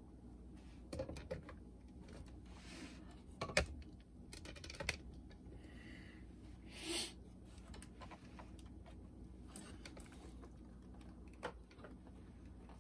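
Faint scattered clicks, taps and knocks of hands handling the opened Sharp GF-508SB boombox's plastic housing and wiring, the sharpest knock about three and a half seconds in, with a brief rustle about seven seconds in.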